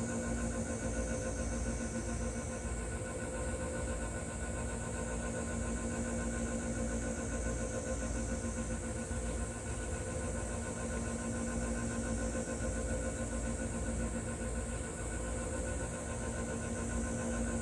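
Cat purring steadily, a continuous low rumble with a constant hum and hiss behind it.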